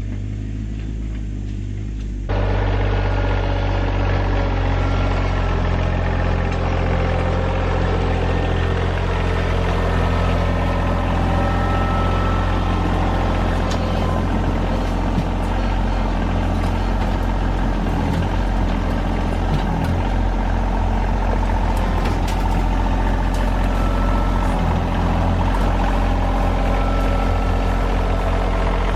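RK25 subcompact tractor engine running steadily, getting louder about two seconds in and holding there.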